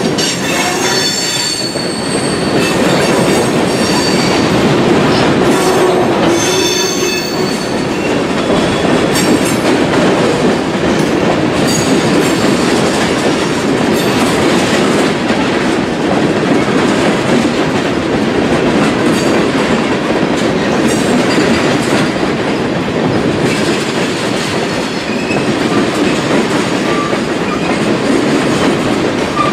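Freight train of tank cars and covered hoppers rolling steadily past: steel wheels rumbling and clicking over the rail joints. High wheel squeal sounds through the first several seconds, then fades.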